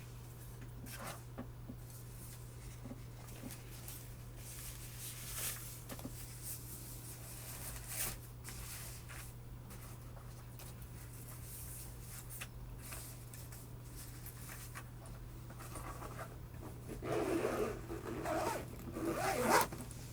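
A few isolated key presses on a mechanical keyboard with Tealios V2 linear switches, single clicks spaced seconds apart. Near the end comes a louder rubbing, shuffling noise lasting about three seconds.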